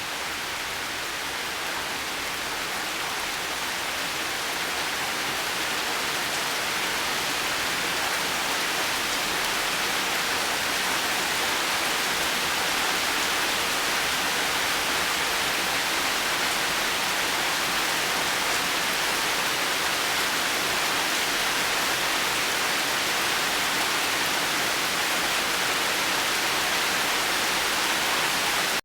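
Heavy rain falling as a steady, dense hiss, swelling slightly louder over the first several seconds and then holding even.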